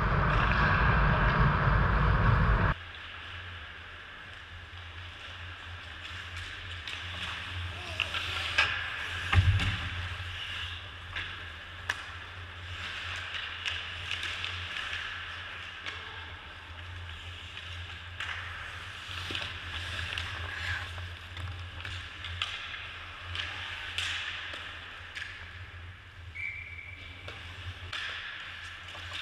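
Ice hockey play heard from the goalie's position: skate blades scraping the ice and scattered stick and puck clicks and knocks over a steady low rink hum. A loud rushing noise fills the first few seconds and cuts off abruptly.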